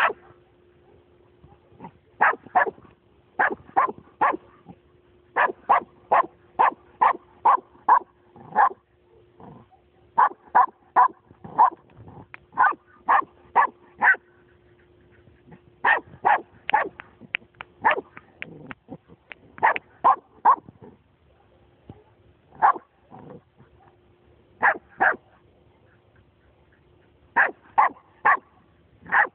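Nova Scotia Duck Tolling Retriever barking repeatedly in quick runs of sharp barks, several a second, with short pauses between the runs.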